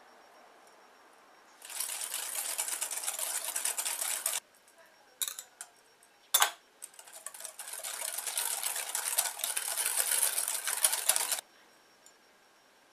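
Wire balloon whisk beating soft batter in a glass bowl, the wires rattling and scraping rapidly against the glass in two spells of a few seconds each, with a few sharp clicks between them.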